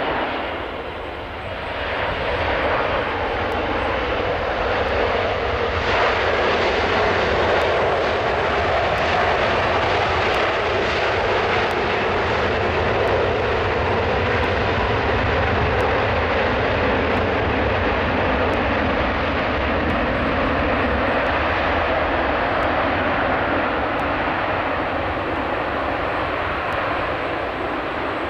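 Jet airliner's engines in reverse thrust after touchdown on a wet runway: a loud, steady roar that builds over the first few seconds and holds.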